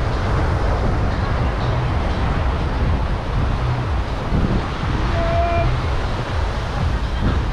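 Wind rumbling on the microphone over the steady wash of surf. A short pitched tone sounds about five seconds in.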